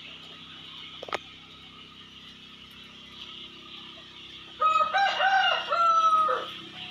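A rooster crowing once, about four and a half seconds in: a cock-a-doodle-doo of several short arched notes ending in a longer held note that drops away. Just after a second in there is a single sharp click.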